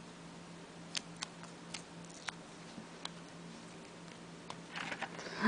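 Faint, scattered small clicks and taps from fingers handling a plastic Lamy Safari fountain pen, about half a dozen over a few seconds, over a low steady hum.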